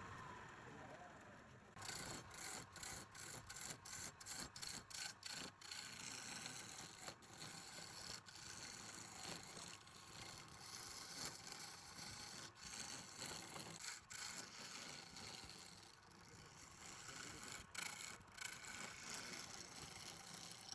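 Hand scrubbing with an abrasive against a hard surface, a rasping back-and-forth. It starts about two seconds in with quick even strokes, about three a second, then runs on as a steady scrub, easing off briefly near the end before picking up again.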